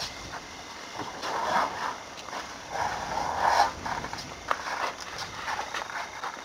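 An African elephant moving through dry brush close by: irregular rustling and crunching of vegetation with scattered snaps, loudest around a second and a half in and again from about three to three and a half seconds.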